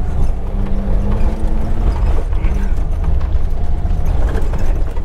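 Maruti Gypsy's 1-litre engine pulling in second gear up a rough dirt trail, heard from inside the cabin. The body and fittings clatter and rattle over the bumps.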